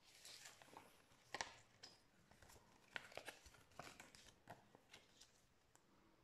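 Faint paper handling: a fold-out paper instruction leaflet being folded up and a small paper booklet handled, irregular rustling and crinkling with a few sharper crackles.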